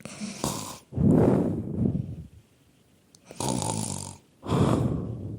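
A person doing put-on snoring into a phone, meant to mock a caller. There are two rounds, each a hissing breath followed by a long, low, rattling snore.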